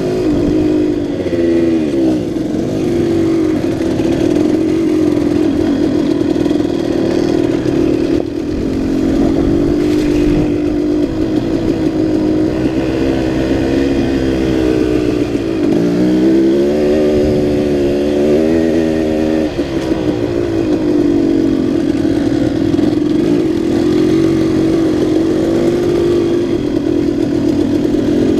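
2006 KTM 200 XC-W two-stroke single-cylinder dirt bike engine running as it is ridden, its pitch rising and falling with the throttle. The pitch dips twice, about two seconds in and again just past halfway, each time followed by a climb and several quick swings.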